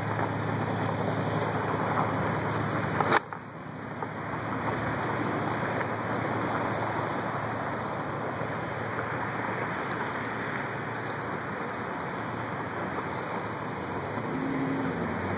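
Steady rush of wind on the microphone, with a low hum underneath that stops at a sharp click about three seconds in.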